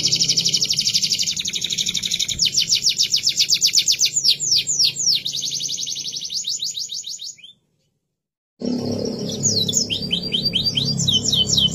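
Domestic canary singing: rapid trills of quick falling notes at about ten a second, running into dense rolling stretches. The song breaks off abruptly for about a second past the middle, then resumes with a held high whistle and more trills.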